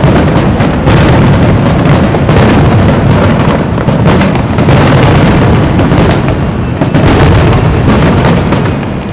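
Fireworks: aerial shells bursting in a dense, loud, continuous barrage, the booms overlapping with hardly a gap, easing briefly near the end.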